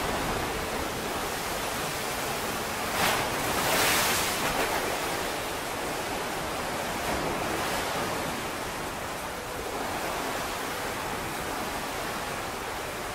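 Water in a cruise ship's netted-over swimming pool sloshing and surging from end to end as the ship rolls in heavy seas, a steady rushing with a louder crash of water about three to four seconds in.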